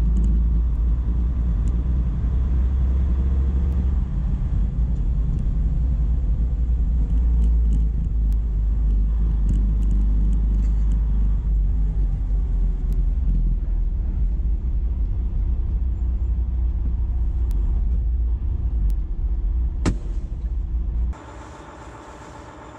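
Semi-truck engine and road noise heard from inside the cab while driving: a steady low rumble, with one sharp knock about 20 seconds in. Shortly after, it drops suddenly to a much quieter engine idle.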